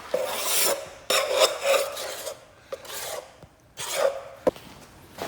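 Several hand-made scraping and rubbing strokes, each lasting up to about a second, with a short sharp click about four and a half seconds in.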